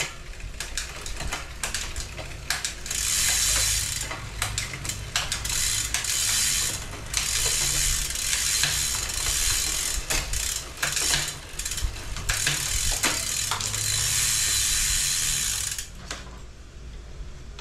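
Road bike's rear freehub ratcheting as the rear wheel spins, a steady buzz that comes in spells of a few seconds, with separate mechanical clicks in between.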